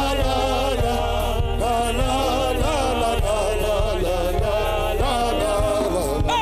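Slow worship music: sustained keyboard chords over a steady bass, with a voice singing a wavering, drawn-out line.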